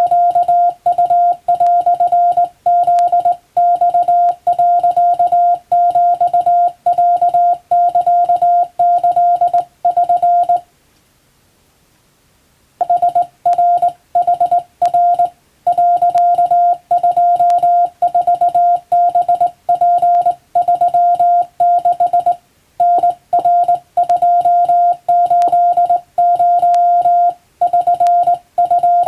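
Hand-keyed Japanese (wabun) Morse code: a steady mid-pitched tone keyed on and off in dots and dashes, with one break of about two seconds about a third of the way in.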